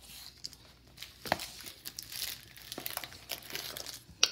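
Plastic wrapping crinkling and cardboard packaging being handled as a Pokémon Elite Trainer Box is unpacked, with scattered small knocks and a sharp click just before the end.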